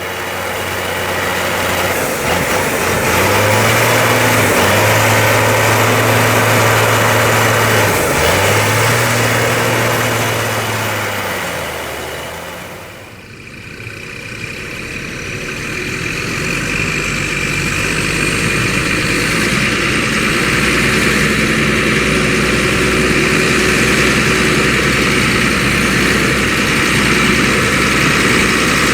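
Heavy farm tractor engine and potato harvester machinery running under load. The engine note dips and recovers twice in the first half, and after a short drop the sound settles into a steadier run with a faint high whine.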